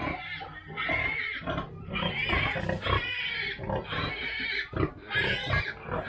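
Pigs calling in a run of short, pitched vocalizations, about six in a few seconds, each under a second long.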